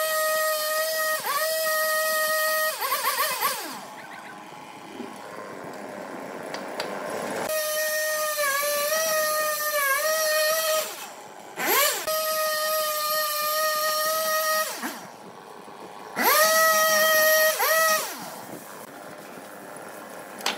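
Husqvarna two-stroke chainsaw ripping a log lengthwise: several stretches of steady high-revving cutting, each dipping briefly in pitch, separated by drops to a quieter idle.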